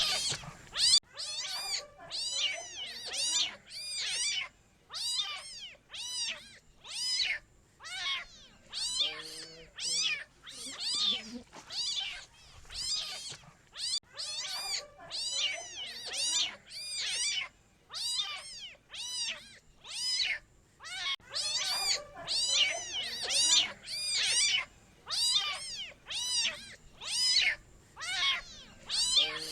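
Kitten meowing over and over: short, high-pitched calls that rise and fall in pitch, about one or two a second, with brief gaps between them.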